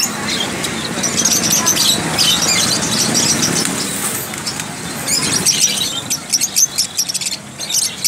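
A crowd of caged budgerigars and lovebirds chirping and squeaking rapidly and continuously. A low street rumble sits under the first half and stops abruptly about five and a half seconds in.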